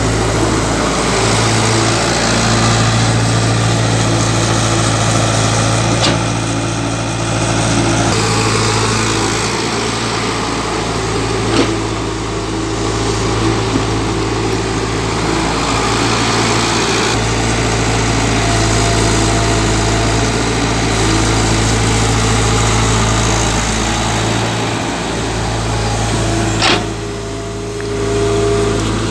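Tata Hitachi excavator's diesel engine running steadily while digging, a low even hum, with a few brief sharp knocks, the loudest near the end.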